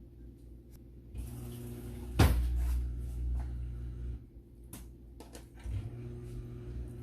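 A sharp knock about two seconds in, then a few lighter clicks, as things are handled in a kitchen, over a steady low hum.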